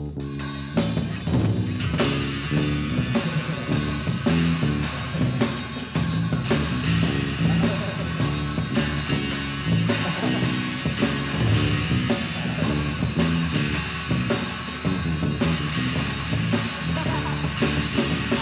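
Rock band playing the ballet's score live, with drum kit, bass and electric guitar in a steady beat of about two drum hits a second.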